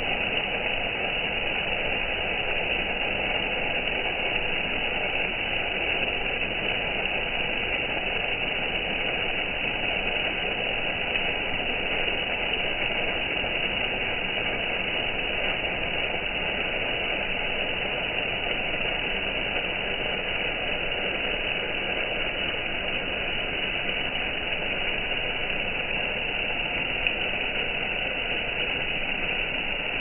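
Lawn sprinkler spraying water over grass, a steady hiss of spray.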